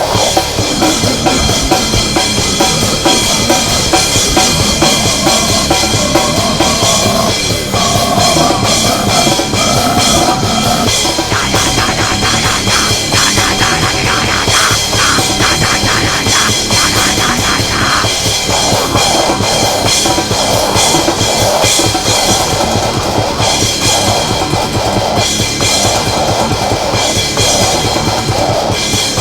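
Loud, dense heavy music driven by a drum kit, with the whole range filled by harsh, distorted sound and no vocals standing out.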